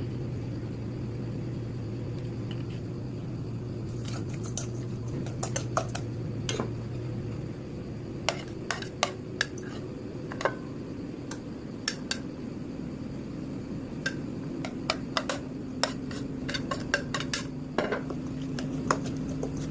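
Cutlery clinking and knocking against dishes in a run of irregular sharp clinks, some loud. A steady low hum underneath stops about seven and a half seconds in.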